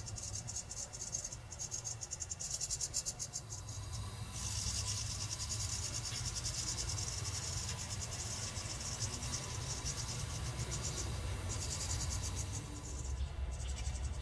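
House wren nestlings begging inside the nest box as a parent comes in with food: a high-pitched, rapid, buzzy chatter. It is faint at first, grows much louder about four seconds in, and breaks off briefly near the end.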